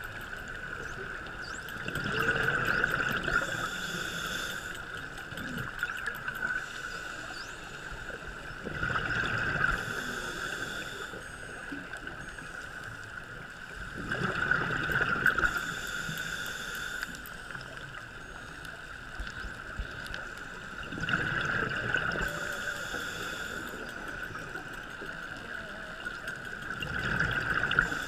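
Scuba diver breathing through a regulator underwater: five rushing bursts of exhaled bubbles, about one every six seconds, each lasting two or three seconds. A steady high tone runs underneath.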